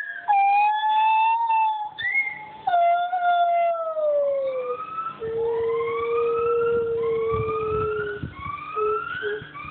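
White-handed gibbons singing in long, pure, siren-like hoots. First come long notes that slide down in pitch. From about halfway, a held lower note runs under a string of rising whoops about one a second, two voices overlapping.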